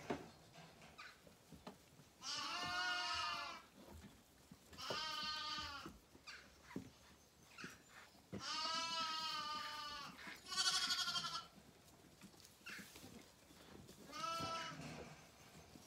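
Zwartbles lambs bleating: about five wavering calls, each about a second long and a few seconds apart, the loudest and highest-pitched one about two-thirds of the way through. A few faint knocks come between the calls.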